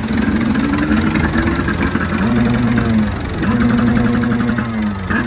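Farm tractor engine running under load and revving up and down as it hauls a jet ski trailer out of the surf, its pitch rising and falling several times.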